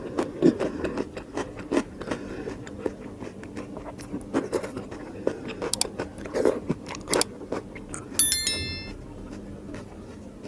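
Close-miked mouth eating sounds: wet chewing, lip smacks and sharp clicks at irregular intervals. A brief high ringing sound with several tones starts about eight seconds in and stops within a second.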